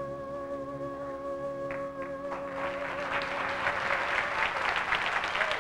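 A stage musical number ends on a long held note with the orchestra, and a little over two seconds in a theatre audience breaks into applause that grows louder.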